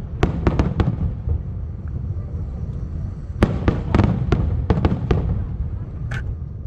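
Aerial fireworks bursting in a show: quick runs of sharp bangs and crackles over a steady low rumble. One cluster comes within the first second, and another from about three and a half to five seconds in.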